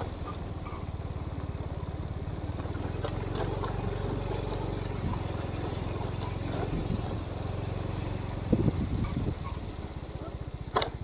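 A vehicle's engine running steadily at low speed as it travels along a rough road, with a few short knocks about eight and a half seconds in.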